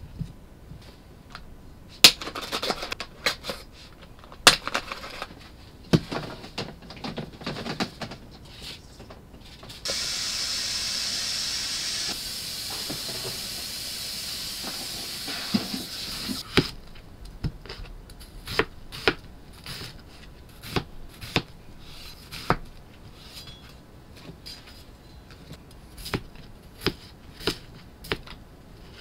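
Peeled potatoes and vegetables knocking down onto a plastic cutting board, then a steady hiss for about seven seconds, then a kitchen knife cutting potatoes into chunks, clacking on the board about once a second.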